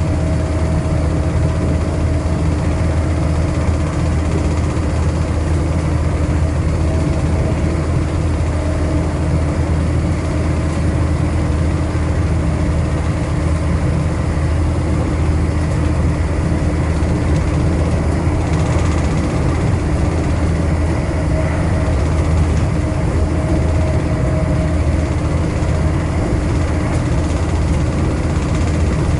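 Inside an Intercity Express Train passenger coach at speed: a steady low rumble of wheels on rail and running gear, with a faint steady hum over it.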